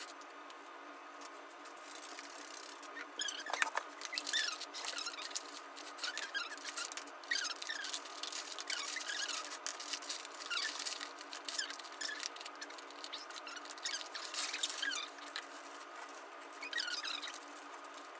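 Felt-tip markers squeaking on paper in many short, quick strokes, with now and then a click or clatter of markers being picked up and put down.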